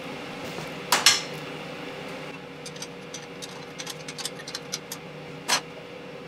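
Metal clanks and clinks of tools and engine parts being handled: two sharp knocks about a second in, a run of light ticks, then another knock near the end, over a steady hum.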